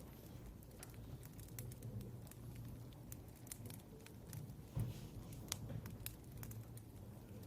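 Faint scattered clicks and small taps over a low steady room hum, with a soft thump about five seconds in.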